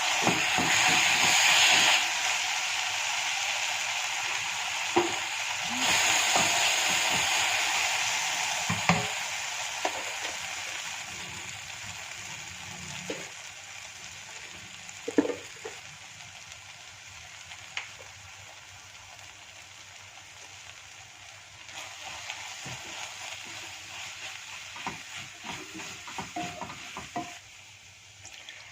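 Food frying and sizzling in hot oil in a pan. It is loud at first and flares up again about six seconds in, then gradually dies down. Scattered taps and scrapes of a spoon stirring run through it.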